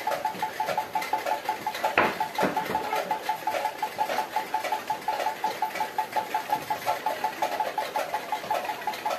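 A fast, steady pulsing at a mid pitch, about six pulses a second, from an unseen source. Paper cutouts and an exercise book being handled, with a sharper rustle about two seconds in.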